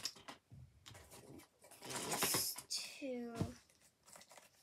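Corrugated plastic pop tubes being stretched and twisted, their ribs giving a rasping burst of fast clicks about two seconds in.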